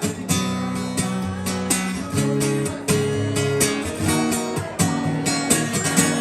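Acoustic guitar strumming chords in a steady rhythm, an instrumental passage of a live song with no singing.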